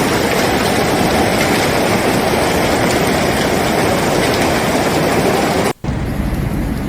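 Heavy hailstorm: a dense, steady din of hailstones pelting hard surfaces. It cuts off suddenly near six seconds in, and a quieter downpour with a low rumble follows.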